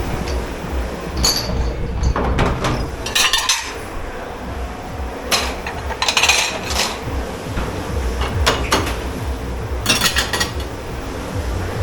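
Dishes, pots and cutlery being handled and stacked in a commercial dish pit: irregular clatters and metallic clinks over a steady low hum.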